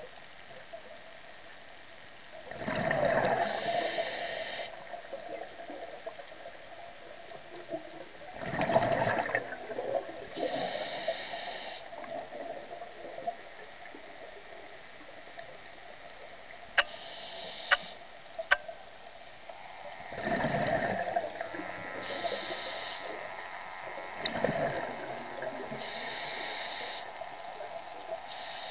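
Scuba diver breathing underwater through a regulator: about four breaths several seconds apart, each a rushing surge followed by a hissing rush of air and bubbles. A few sharp clicks come near the middle.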